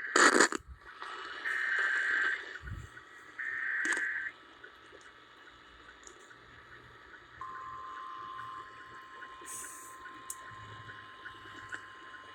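NOAA Weather Radio Emergency Alert System audio: a sharp burst of static, then the screechy digital SAME header bursts, each about a second long. From about seven seconds in comes the steady 1050 Hz weather-radio warning alarm tone, announcing the next severe thunderstorm warning.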